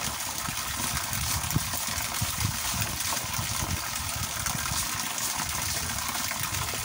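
A stream of water from a garden hose pouring and splashing steadily onto a person bent beneath it, with irregular low thuds as it lands.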